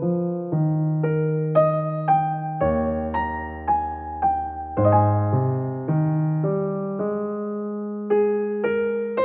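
Background piano music: a slow melody of struck, decaying notes over lower chords, with no drums.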